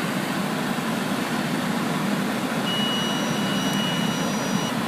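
Car engine running under load as a car stuck in deep snow is driven free. The sound is a steady low noise, and a thin high tone joins it for about two seconds in the second half.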